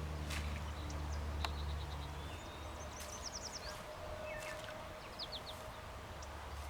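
A beaver chewing willow, heard as a few sharp, scattered crunches. A small bird gives quick series of short high chirps a couple of times.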